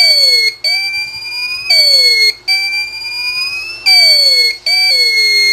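Fault buzzer of a TBE 2000 W pure sine wave inverter sounding on power-up, a loud, shrill, slightly wavering alarm tone that breaks off briefly about every second. It is the inverter's fault alarm.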